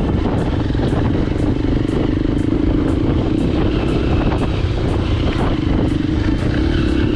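Motorcycle engine running steadily under way, with rough, uneven low-end noise, over background music with a steady beat of about two ticks a second.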